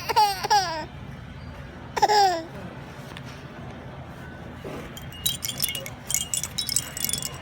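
A baby's high-pitched squeals, two short calls falling in pitch in the first couple of seconds. From about five seconds in, small metal pieces jingle and clink with a light ringing, like keys or wind chimes.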